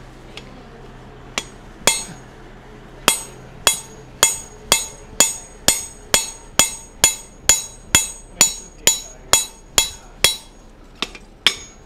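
Hand hammer striking a handled punch driven into a red-hot mild steel bar on the anvil, punching the eye hole of a monkey tool. Each blow is a sharp metallic strike with a brief high ring; a few single blows come first, then a steady run of about two blows a second, and two more near the end.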